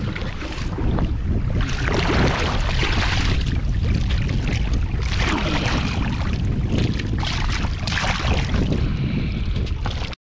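Wind buffeting the microphone over the rush of water along the hull of a boat under way, with a steady low rumble and gusty surges. It cuts off suddenly near the end.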